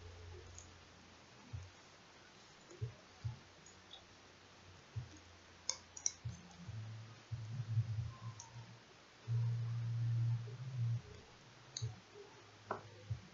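Fingers fitting the display cable connector into the back of a Dell Inspiron 15 3000's replacement screen: scattered light clicks and soft low thumps of handling, with a steadier low rub for about two seconds past the middle.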